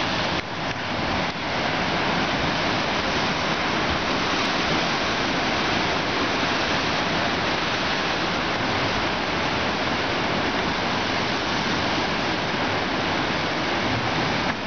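Ocean surf churning through a rocky chasm around a spouting-horn blowhole: a loud, steady rushing of water with no distinct surges.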